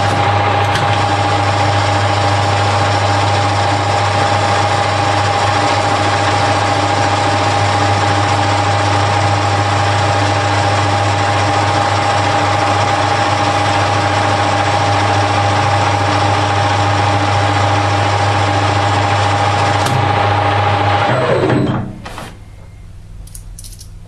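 Harrison L5 metal lathe running under power feed on a skim cut along a steel bar's outside diameter: a steady motor and gear whine over a low hum. About 21 seconds in the whine falls in pitch as the lathe runs down and stops.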